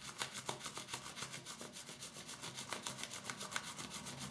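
Pure horsetail-hair shaving brush swirled against a plastic-gloved palm, building shaving soap into lather: faint brushing and rubbing in quick, even, repeated strokes.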